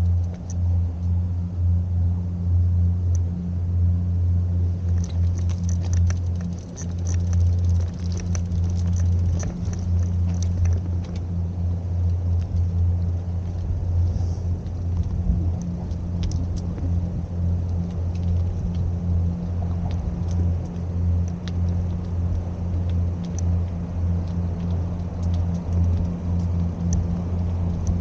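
Car driving along: a steady low rumble of engine and road noise, with small scattered ticks and rattles.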